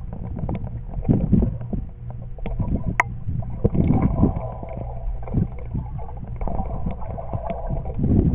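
Muffled underwater sound of pool water moving around a submerged camera as a swimmer glides through it: a low rumble with irregular swells, and a few sharp clicks, the clearest about three seconds in.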